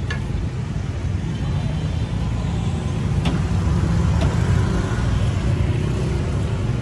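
Street traffic: a steady low rumble of passing vehicle engines, growing a little louder about halfway through, with a couple of faint clicks.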